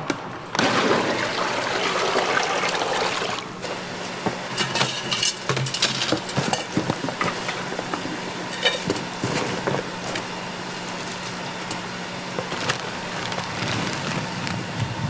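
A rush of liquid pouring or splashing for about three seconds, then scattered clinks and knocks of metal utensils and cookware at a street-food stall's cooking station.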